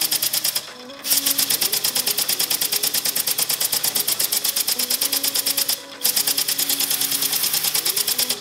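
3D-printed single-cylinder compressed-air engine running on about 50 psi, its exhaust puffing and clicking in a rapid, even rhythm as the flywheel spins. The rhythm breaks off briefly twice, about a second in and near six seconds, and picks straight back up.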